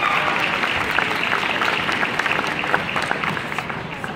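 Audience applause, many hands clapping at once, thinning out toward the end, with a high held cheer from one voice ending in the first moment.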